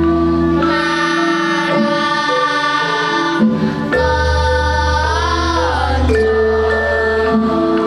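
Primary-school girls' choir singing a Javanese-language song in long held notes over an instrumental accompaniment with a steady deep bass. One note wavers about five seconds in.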